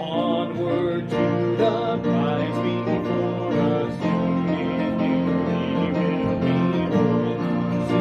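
A hymn sung to instrumental accompaniment, starting a new verse after a brief pause.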